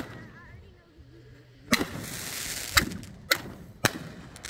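Consumer fireworks going off: a sharp crack, then about two seconds in a hissing burst lasting about a second, followed by a string of sharp bangs about half a second apart.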